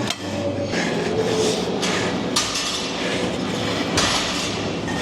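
Gym clatter: a few sharp metallic clanks over a steady background din, typical of loaded barbell plates knocking during a heavy deadlift.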